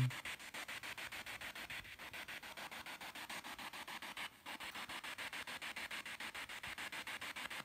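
Spirit box radio sweeping through stations: hissing static chopped into short pulses about ten times a second, with one brief break about four seconds in.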